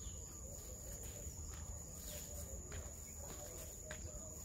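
A steady, high-pitched insect drone, with faint footsteps on a dirt path and a low rumble underneath.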